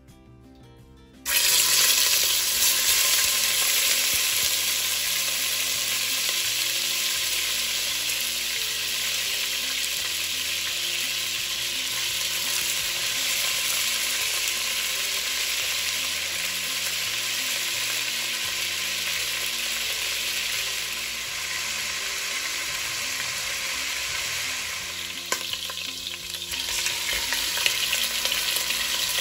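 Cubes of beef searing in very hot sunflower oil in a stainless steel pan: a loud, steady sizzle that starts suddenly about a second in, with a few clicks near the end.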